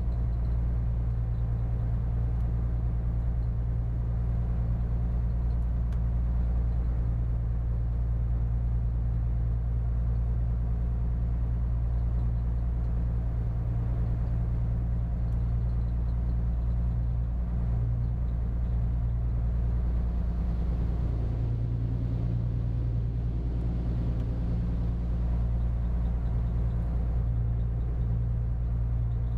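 Diesel engine of a spits, a small Dutch inland cargo barge, running steadily under way: an even, low drone that holds the same pitch and level throughout.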